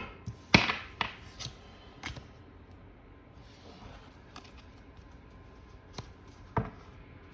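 Tarot cards being handled on a table: a scattering of sharp card taps and flicks as cards are shuffled and pulled, several close together in the first two seconds with the loudest about half a second in, then a few single taps.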